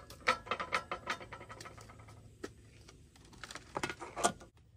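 Light metallic clinks and rattles from a tin can being handled, in a quick run at first, a single click partway through, and another run near the end.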